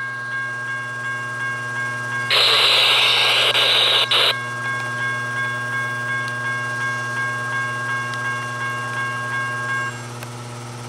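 An Amtrak passenger train gives a steady low hum. Over it a railroad warning bell rings in even pulses about twice a second and stops near the end. About two seconds in, a loud burst of hiss lasts about two seconds.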